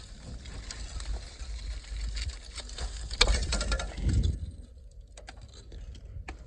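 Rusted exhaust muffler being worked off an old Ford industrial tractor: a busy run of metal scraping and clinking, with one sharp clank a little past three seconds in, then only a few scattered clicks.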